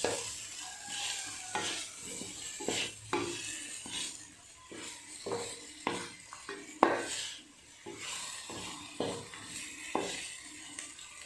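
A spoon scraping and knocking irregularly against a cooking pan as masala is spread over fish pieces, over a steady sizzle of the frying masala.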